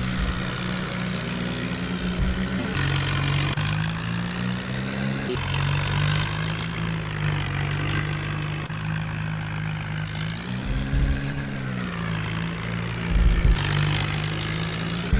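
Heavy diesel tractor engine running hard under load, its pitch dipping and recovering about ten seconds in.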